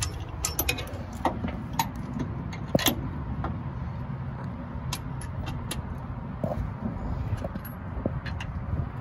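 Scattered light metallic clicks and taps of shock-mounting hardware and hand tools being handled while a new front shock absorber is fitted through the lower control arm, over a low steady rumble.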